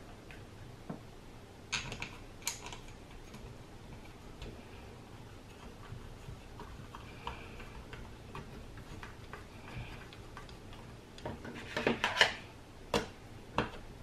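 Scattered light clicks and taps from hands handling the plastic side cover and screws of a Ninebot Mini Pro hub-motor wheel during reassembly, with a run of louder clicks near the end.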